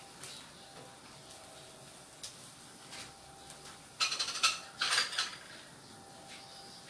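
A wooden spatula stirring shrimp in a stainless steel pan, with a few light taps, then a loud clatter of kitchenware for about a second, starting about four seconds in.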